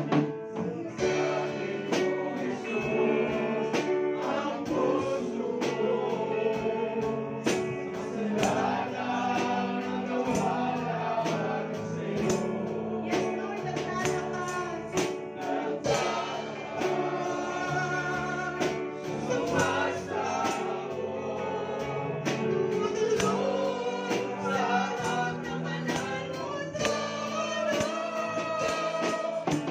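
A woman singing a Tagalog worship song into a microphone, backed by a live band with drums and cymbals keeping a steady beat.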